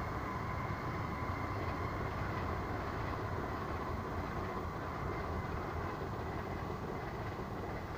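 Train passing on the nearby electrified railway line: a steady rumble with a thin high whine over it, fading slightly near the end.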